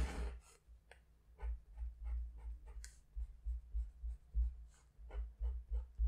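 Drawing by hand: a run of short, scratchy strokes of a writing tool on a surface, one after another at an uneven pace, with dull low thumps as it presses down.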